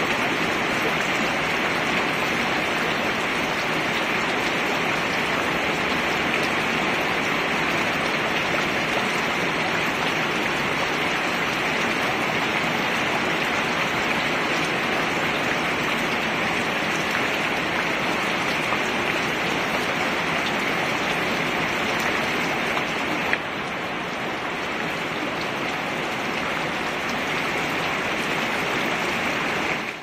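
Steady heavy rain, drops splashing into water in a plastic tub. About three quarters of the way through there is a single click, after which the rain is slightly quieter.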